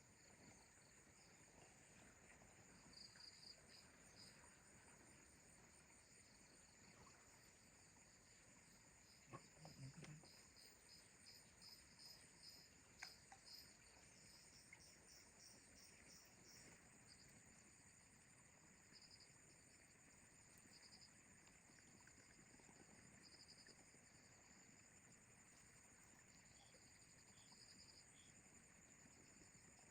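Faint insects chirping: a steady high trill with pulsed bursts of chirping over it, heavier in the first half.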